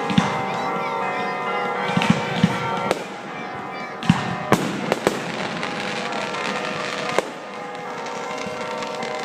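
Fireworks going off: a string of sharp bangs at uneven intervals, several close together in the middle and a last one near the end, over steady music playing throughout.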